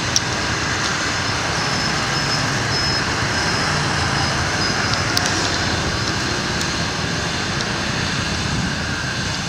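Steady city street traffic noise, an even wash of passing vehicles, with a faint high thin tone coming and going for the first few seconds and a few light clicks.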